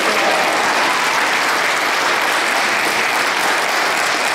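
Crowd applauding steadily, a dense even clapping that neither builds nor fades.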